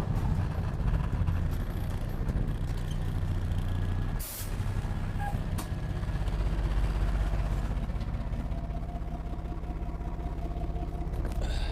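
Heavy armoured truck's engine running steadily with a low rumble, with a short hiss about four seconds in, typical of an air-brake release.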